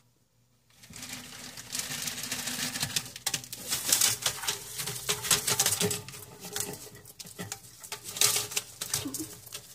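Newspaper crinkling and rustling with dense scratchy clicks as a bearded dragon scrambles across it, starting about a second in.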